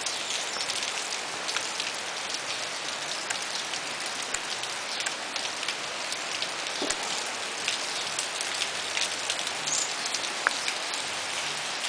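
Steady rain falling, with many sharp drop ticks close by.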